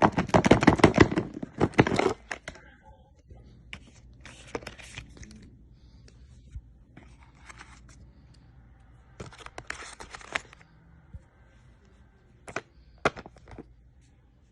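Phone packaging being torn and crinkled loudly for about two seconds, then handled with short bursts of rustling and scraping, and two sharp clicks near the end.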